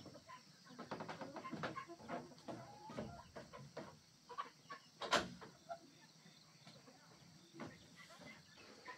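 Chickens clucking, with scattered light knocks on wood and one sharp knock about five seconds in.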